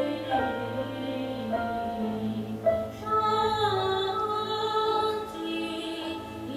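Several voices singing long held notes together, their pitches sliding slowly from one note to the next, over a steady low hum; a higher voice joins about three seconds in.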